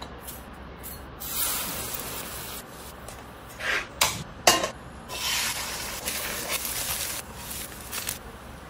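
Kitchen cooking sounds: stretches of hissing and, a little before halfway, a few sharp clicks as a portable gas stove is lit.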